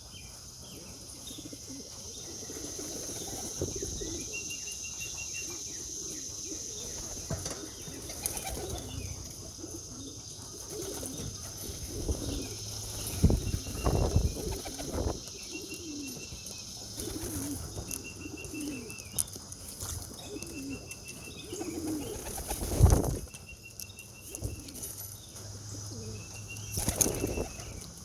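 Young racing pigeons flapping their wings as they take off and land around the loft, in several loud bursts of wing claps about halfway through and near the end, with pigeons cooing between the flaps.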